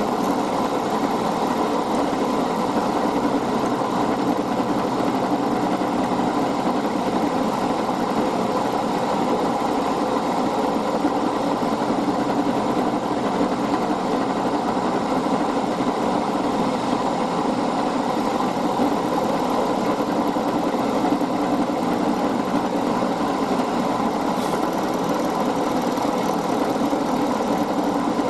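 Small metalworking machine tool running steadily, its motor and gearing making an even hum while an aluminium part is machined down to size.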